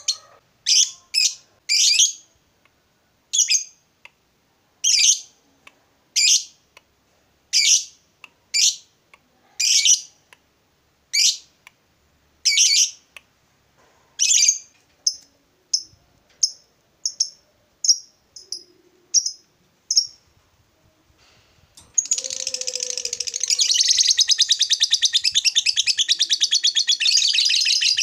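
Lovebird calling: sharp, high chirps, roughly one a second, coming shorter and quicker about fourteen seconds in. After a brief pause about twenty seconds in, it breaks into a long, rapid chattering trill, the ngekek that keepers prize in a lovebird in full voice.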